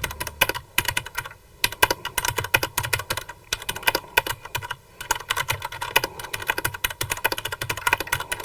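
Fast typing on a QPad MK50 mechanical keyboard fitted with Cherry MX Black switches: linear, non-clicky switches with a 60 g actuation force, giving a quick run of key clacks with two short pauses.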